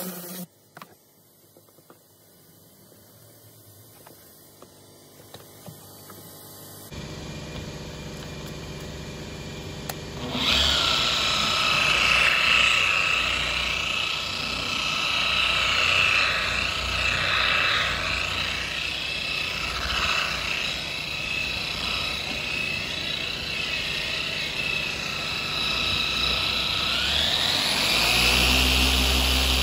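Dual-action polisher buffing a truck's painted fender, its motor whining steadily and wavering in pitch, with the pitch climbing near the end. The first several seconds are faint, and the polisher comes in loudly about ten seconds in.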